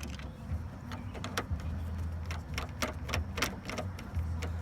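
Irregular small clicks and taps of a car door handle and its lock cylinder being worked and pushed into place by hand, thickest in the middle stretch.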